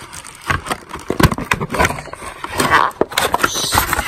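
Cardboard packaging being handled as a power bank is lifted out of its box: an irregular run of scrapes, rustles and knocks.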